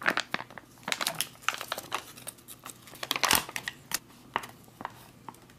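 Foil-laminate ration pouch crinkling as it is handled, a run of irregular crackles with the loudest about three seconds in.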